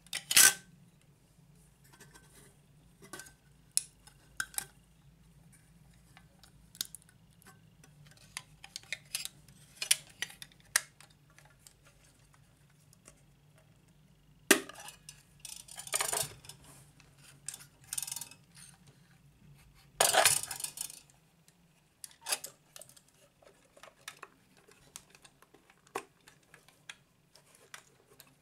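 LOMO Lubitel 166 plastic-bodied twin-lens reflex camera being handled and worked by hand: a scatter of sharp clicks from its knobs, levers and hood, loudest right at the start, with a few longer scraping sounds of about a second each.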